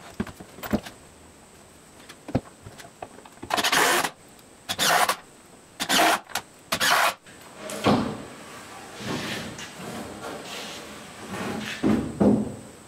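A wooden 2x4 frame being shifted on a plywood tabletop: a few short, sharp scrapes and knocks, then longer dragging and scraping sounds as the frame is pushed along.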